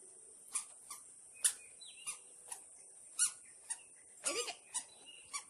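About ten short, high squeaks at irregular intervals, roughly two a second, some with a brief slide in pitch.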